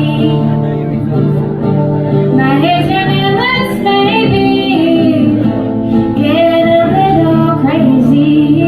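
Woman singing an original song, her voice gliding between held notes over acoustic guitar accompaniment.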